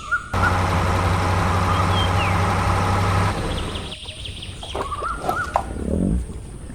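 Engine running steadily for about three seconds, then cutting off abruptly, followed by a few bird-like chirps.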